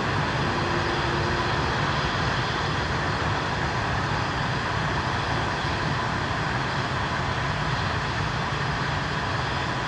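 Jet engines of an easyJet Airbus A320-family airliner running steadily at low power as it rolls slowly along the runway: an even rumble with a faint steady whine.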